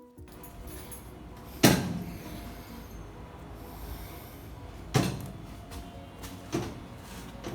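Three loud bangs: a strong one, another about three seconds later and a weaker one a second and a half after that, each trailing off briefly, over a steady low hum.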